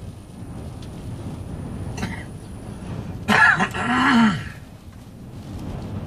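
Steady low rumble of storm wind against a stopped car, heard from inside the cabin. About three seconds in, a person in the car lets out a loud throat-clearing cough lasting about a second.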